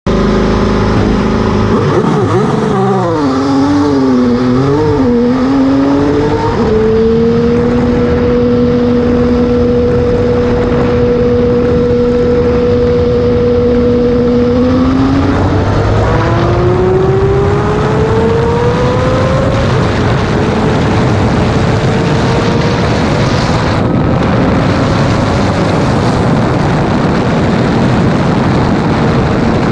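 IndyCar's Honda twin-turbo V6, heard from the cockpit. It revs unevenly as the car pulls away from the pit box, then holds one steady pitch for about eight seconds at pit-lane speed. About fifteen seconds in it accelerates hard, the pitch climbing, with a gear change a few seconds later.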